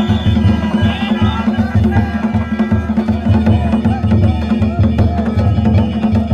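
Danjiri festival music (narimono): taiko drums beaten in a fast, steady rhythm under the ringing clang of kane gongs.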